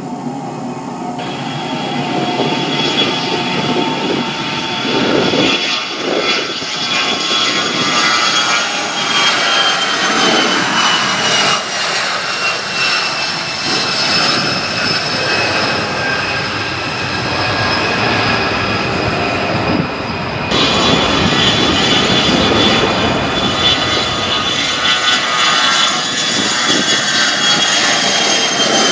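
Jet airliner engines running loudly, a rushing roar with high turbine whines that slowly drop in pitch. The sound changes abruptly about two-thirds of the way through.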